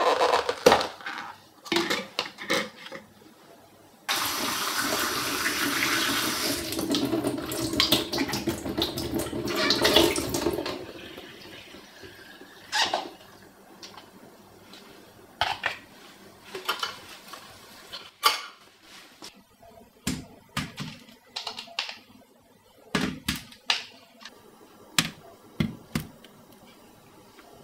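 Kitchen tap running for about seven seconds as cherry tomatoes are rinsed at a steel sink. Before it come crackling clicks of a plastic tomato cup's lid being opened, and after it scattered light taps as the tomatoes are handled and set down one by one on a parchment-lined baking sheet.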